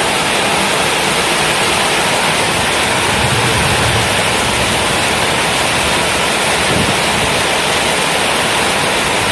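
Heavy rain pouring down, a loud steady hiss with no let-up.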